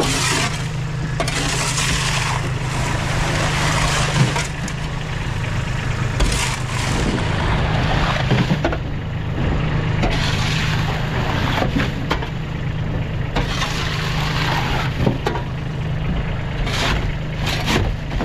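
An engine running steadily throughout, with repeated noisy bursts a second or two long and a few sharp knocks over it.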